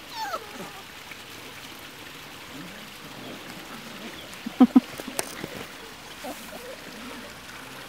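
Five-week-old Labrador puppies playing on grass over a steady hiss. A short falling whine comes just after the start, then two short, sharp yips a little past halfway.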